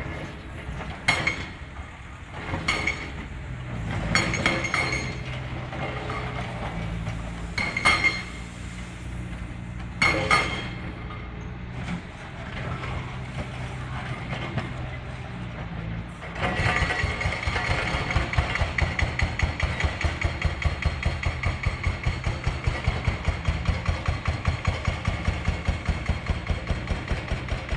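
Diesel engines of demolition excavators running, with several sharp crashes of falling concrete and rubble in the first half. About two-thirds of the way through, a steady rapid pounding of about three beats a second sets in.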